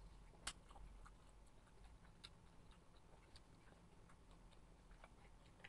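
Near silence with a few faint clicks of sipping from a small paper cup, the clearest about half a second in.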